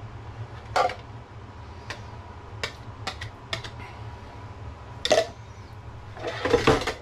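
A wire whisk clicking and knocking against the side of a plastic measuring jug as a cream and egg mix is poured from it: a run of light separate clicks, a louder knock about five seconds in, and a short clatter near the end.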